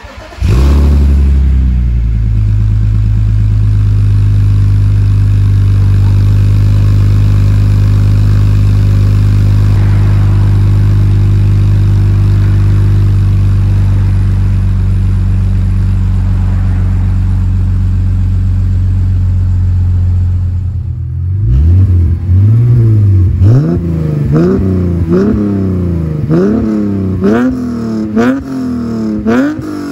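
BMW E46 325i's 2.5-litre M54 inline-six through aftermarket headers and a rear muffler, starting up and settling into a steady cold idle. About twenty seconds in, it switches to the warm engine being revved in quick throttle blips about once a second, the exhaust note rising and falling with each.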